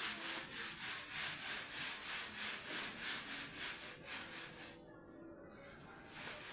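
Sand being sifted through a wooden-framed wire-mesh screen shaken back and forth by hand, the grains hissing and rasping through the mesh about three strokes a second while gravel stays on top. The strokes stop about four and a half seconds in.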